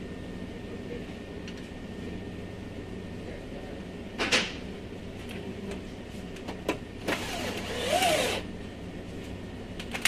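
Window regulator being worked inside a car door's metal shell: scattered clicks and a short scraping rasp, then a longer louder scrape about seven seconds in with a squeal that rises and falls, over a steady low hum.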